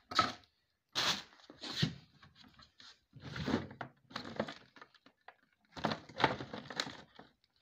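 Handling noise from a phone held in the hand while moving about: uneven bursts of rustling and rubbing, with clothing brushing against the microphone. The loudest bursts come right at the start and about six seconds in.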